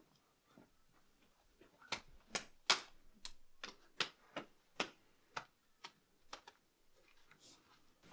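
Black plastic tape wrapped around a person crackling and crinkling as hands search through it. It comes as a run of sharp crackles, two or three a second, from about two seconds in, growing fainter near the end.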